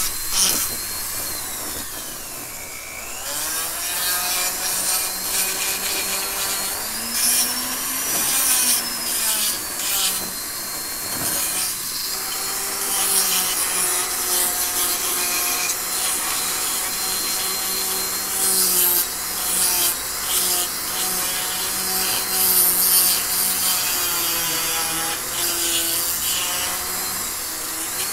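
Foredom flexible-shaft rotary carver running, its burr grinding into the wood of a small carved bear with a steady rasping. The motor's hum dips and rises in pitch as the burr bites in and eases off.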